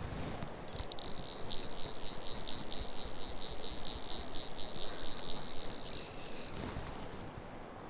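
Fly reel's drag clicking rapidly as a hooked fish pulls line off the spool, starting about a second in and stopping after about six seconds.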